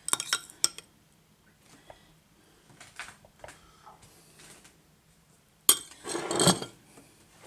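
A metal spoon clinking against a metal muffin tin and a bowl while barbecue sauce is spooned over meatloaves: a quick run of sharp clinks at the start and a few lighter taps. Near the end comes one louder clatter and a second of scraping as the spoon and bowl are handled.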